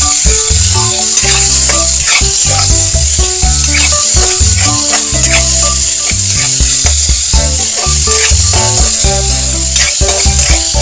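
Meat pieces sizzling as they fry in a wok, stirred around with a wooden spatula, under background music with a steady bass line.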